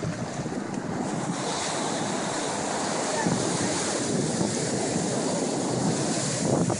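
Ocean surf washing up the beach, with wind noise on the microphone; the hiss of the wash grows louder about a second and a half in.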